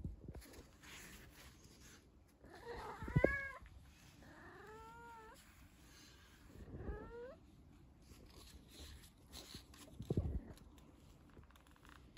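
Domestic cat meowing three times in quick succession, each call short and rising then falling in pitch. A dull bump sounds near the first call and another later on.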